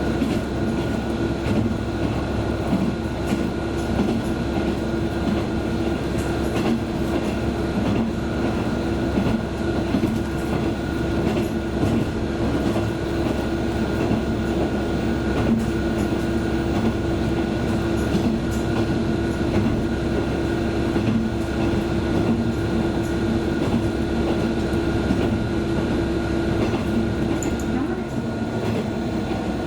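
A passenger train running at speed: steady rumble of the car on the rails, with a constant hum and a steady whine from the running gear.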